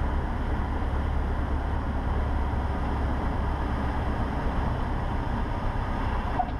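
Cessna 150's four-cylinder Continental O-200 engine at idle throttle, heard inside the cabin as a steady low drone under rushing airflow noise as the plane lands.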